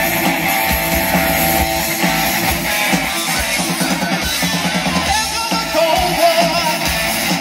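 Live 80s rock band playing: electric guitars, bass and drum kit over the PA, with a wavering lead line rising out of the mix in the second half.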